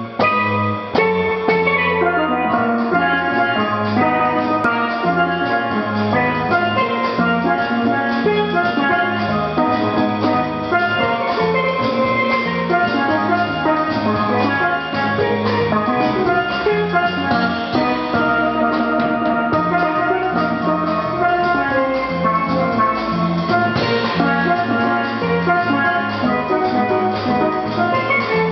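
Steelpan solo, a steady stream of quick ringing notes, accompanied by a plucked double bass and a drum kit.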